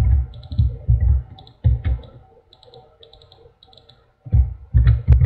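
Computer keyboard keystrokes and mouse clicks: scattered short, light clicks mixed with dull low thumps, quieter in the middle and with a louder run of thumps near the end.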